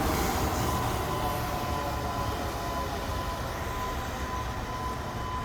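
Heavy vehicle engine rumble and street noise slowly fading away, over a steady high-pitched tone from the building's fire alarm sounding throughout.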